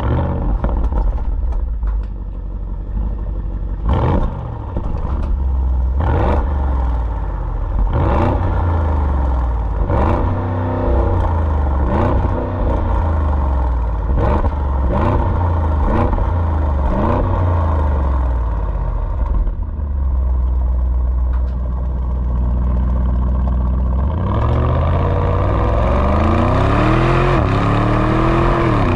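2023 Audi SQ8's 4.0-litre twin-turbo V8, heard close at the exhaust tips: a run of short, sharp throttle blips while stationary, each rising and falling in pitch, then settling to idle. About 24 s in, it pulls away hard, the note climbing and dropping back through quick automatic upshifts.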